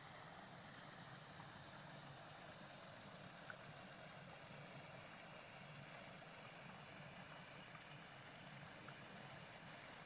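Stream water flowing and splashing over a low rocky cascade: a steady, fairly faint rush with one small tick about three and a half seconds in.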